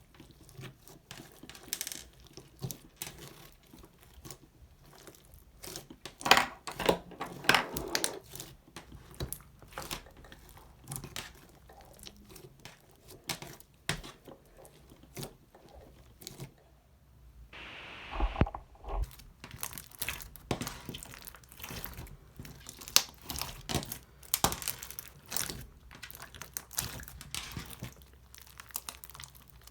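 Slime being handled and mixed by hand, giving a run of sticky crackles and pops, with a denser stretch about six seconds in and a brief louder squelch about eighteen seconds in.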